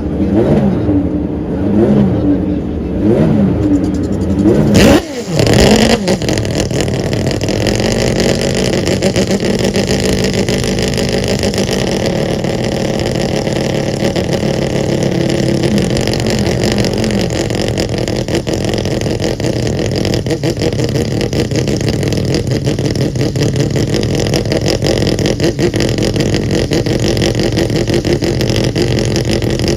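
Mazda 787B's four-rotor rotary engine blipped in several quick rises and falls of revs, then a sharp rev sweep with a brief dip about five seconds in, after which it settles into a long, steady run.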